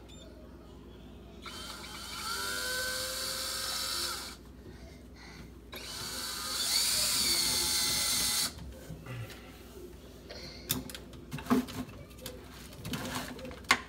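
Power drill run twice for about two to three seconds each, its motor pitch rising as it spins up, undoing a fastener. After that, scattered clicks and knocks of tools and parts being handled.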